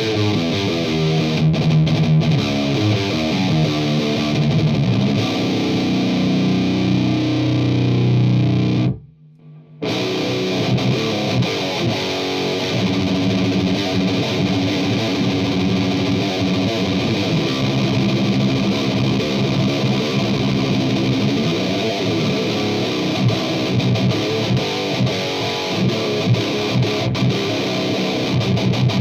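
Heavily distorted electric guitar played through a Mesa Boogie Road King V2 tube amp on a high-gain metal setting, playing rhythmic metal riffs. It stops dead for about a second roughly a third of the way in, then starts again.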